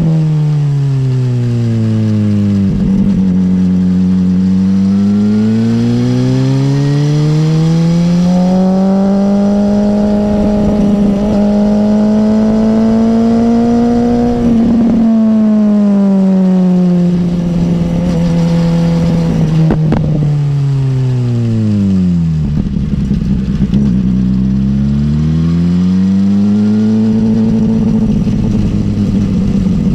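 BMW S1000R's inline-four engine, heard from on the bike as it is ridden. The pitch drops in the first few seconds, climbs and holds through the middle, falls away steadily from about fifteen seconds in, then climbs again over the last few seconds. There are a few sharp clicks at about three, fifteen and twenty seconds in.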